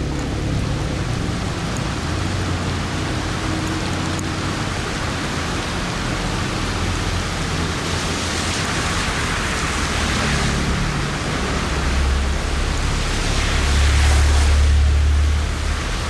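Steady heavy rain, an even hiss, over a low rumble that swells near the end.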